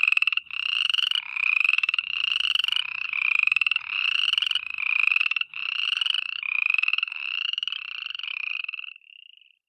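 Frogs calling: a rapid pulsed trill repeated about once a second, each call rising slightly in pitch, growing fainter over the last few seconds and dying away near the end.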